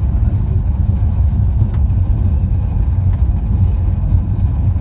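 Mitake Tozan Railway cable car running downhill, a steady low rumble heard from inside the car, with a few faint clicks.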